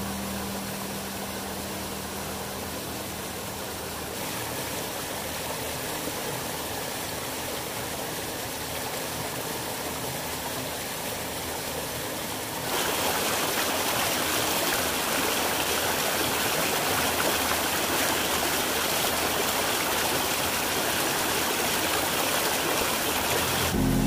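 Shallow rocky stream rushing and splashing over rocks in small cascades, a steady water noise. About halfway through it jumps suddenly louder and hissier.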